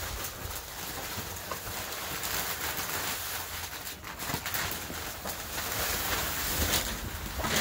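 Wood shavings rustling and pouring out of a white plastic bag onto coop bedding, the bag crinkling as it is lifted and tipped; the rustle swells twice.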